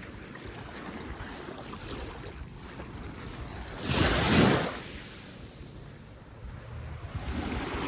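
Ocean surf washing onto a beach, with wind buffeting the microphone. A louder rush lasting about a second comes about four seconds in.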